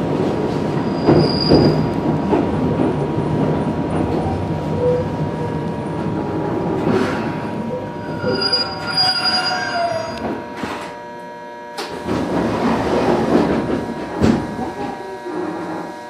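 Electric commuter train, a Toyama Chihō Railway 17480 series (ex-Tokyu 8590), rumbling along the rails with its wheels squealing in thin gliding tones, as it slows for a station stop.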